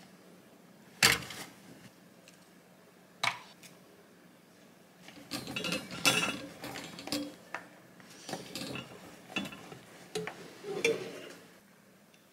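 Metal loaf tin knocking against a wire cooling rack while a baked loaf is tipped out of it: a sharp clank about a second in, another a couple of seconds later, then a run of knocks and scrapes as the tin is handled.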